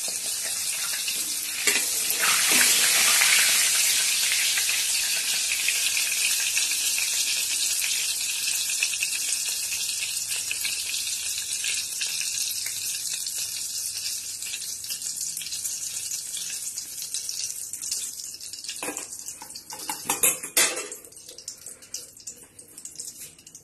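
A whole block of paneer sizzling in hot oil in an iron kadai: a steady hiss that swells about two seconds in and slowly dies down. A few knocks of the metal spatula and fork on the pan come near the end as the paneer is lifted out.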